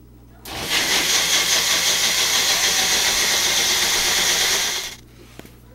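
Small bullet-style personal blender running, puréeing cherries with water and sugar. The motor starts about half a second in, holds a loud, steady whir for about four seconds and cuts off abruptly near the end.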